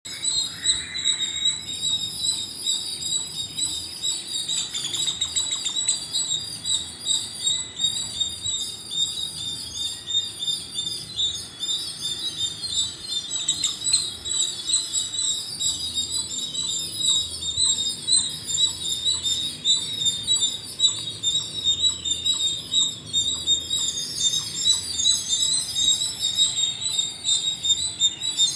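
A flock of small birds chirping continuously, with many rapid high-pitched chirps overlapping into a busy chorus.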